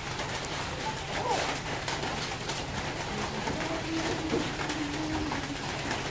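A dove cooing low and drawn out around the middle, over a steady low hum and background noise with a few light clicks.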